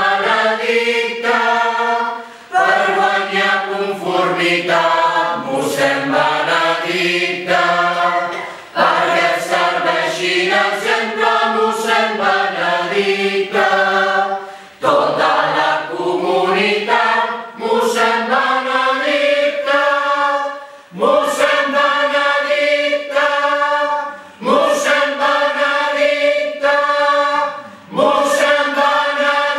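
Amateur mixed choir of men and women singing unaccompanied, in phrases of a few seconds broken by short breaths; in the second half the phrases end on long held chords.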